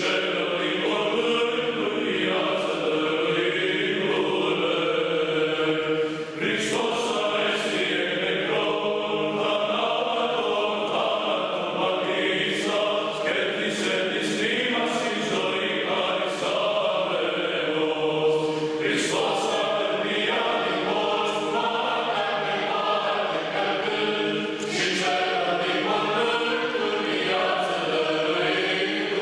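Choir chanting a slow church hymn, one continuous line of chant with a few short breaks between phrases.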